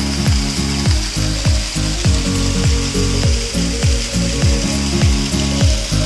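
Background music with a steady beat: deep bass kicks that fall in pitch about twice a second, under sustained synth chords.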